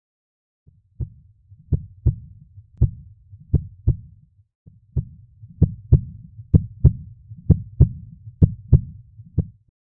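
A heartbeat: paired low thumps, lub-dub, about once a second, starting after a short silence.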